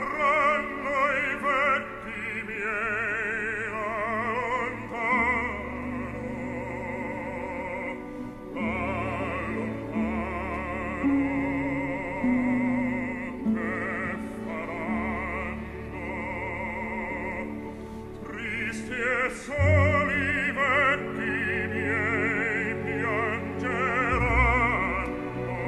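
Operatic singing with orchestral accompaniment: a solo voice sings long, held notes with wide vibrato.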